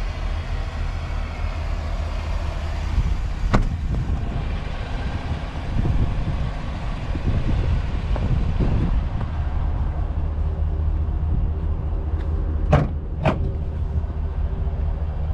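2024 GMC Sierra 2500 HD pickup's engine idling steadily, a low even hum. A sharp click comes about three and a half seconds in, and two more come close together near the end.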